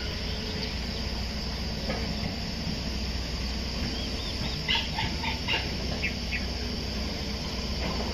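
Birds chirping, a short run of quick calls about halfway through, over a steady low rumble and a steady high hiss.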